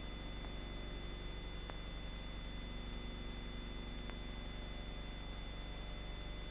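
Steady hum and hiss of an old film soundtrack, with two thin high tones held steady underneath and two faint clicks, one early and one past the middle.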